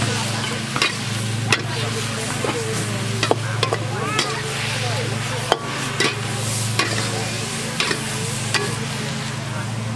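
Vegetables stir-frying in a steel wok over a wood-fired rocket stove: steady sizzling, with a metal ladle scraping and clacking against the wok about once a second. A steady low hum runs underneath.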